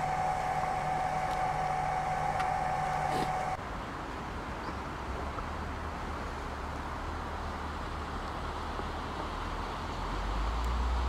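A steady electronic tone sounds and cuts off abruptly about three and a half seconds in, over the low hum of a shuttle bus engine. The engine hum grows louder near the end.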